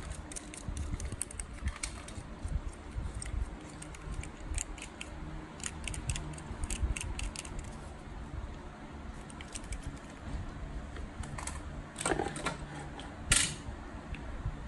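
Light clicks and ticks of a small die-cast toy car being handled and turned over in the fingers, with a louder clatter and a sharp knock near the end as the car and a wooden board are handled.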